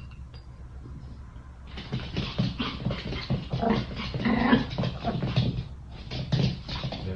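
Small white Pomeranian making rapid, rough growling and whining noises while it whirls about on a wooden floor, starting about two seconds in, over a low steady hum.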